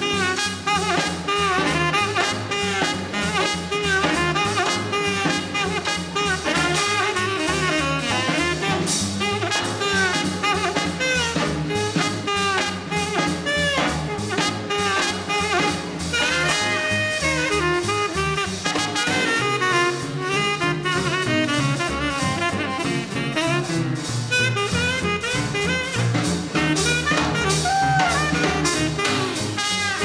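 Small-group swing jazz played live: saxophone and trumpet play the melody together over a steady drum-kit beat.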